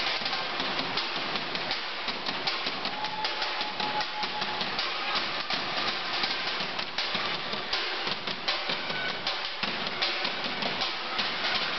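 Marching bass drums and drumline percussion played live in a fast, steady beat of many strikes a second.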